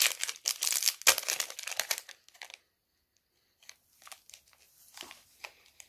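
Clear plastic wrapper crinkling and tearing as it is picked off a wax melt, in a dense run of crackles for about the first two seconds, then a few faint scattered crackles.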